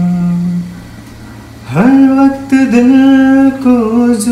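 Background Hindi song: a man singing long held notes. One note fades out within the first second, and after a short lull the voice slides up into a new held note a little under two seconds in.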